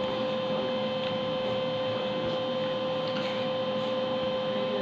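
A steady hum at one constant pitch over a low hiss, even in level throughout.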